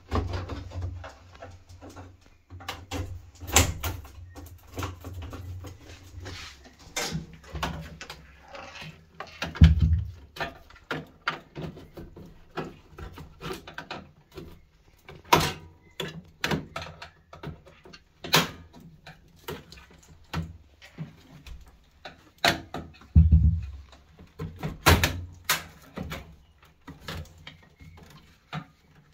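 Irregular knocks, clicks and clatter of washing-machine parts being handled during a drain-pump repair, with a few heavier thuds and a low hum in the first several seconds.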